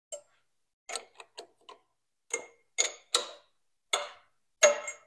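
About ten short metallic clicks and clinks at uneven intervals, the last the loudest and ringing briefly: small metal parts and tools handled on a K.O. Lee tool and cutter grinder while its belt pulleys are being swapped, with the machine stopped.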